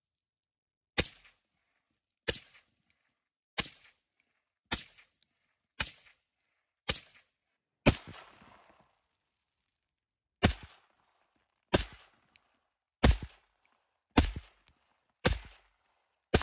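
Single shots from a GM-15, an AR-15-type carbine in 7.62 calibre with an SV-AR-15 muzzle device, fired at about one a second. There are seven shots, a pause of about two and a half seconds, then six more, each with a short echo.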